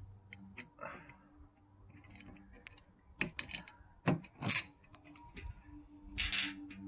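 Metal clicks and clinks of RV door lock and latch parts being handled and fitted. A cluster of sharp clacks comes about three to four and a half seconds in, and a short rattling scrape near the end.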